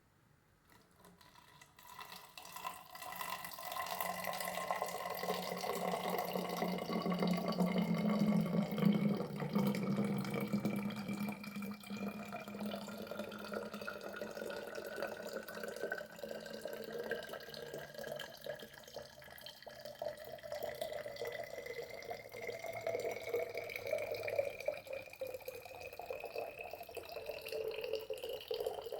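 Water pouring into a plastic bottle, starting a second or two in. The resonant note of the pour rises steadily in pitch as the bottle fills.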